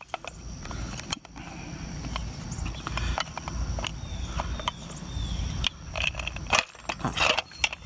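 Irregular clicks, knocks and rustling from hands working to hang a suet ball feeder.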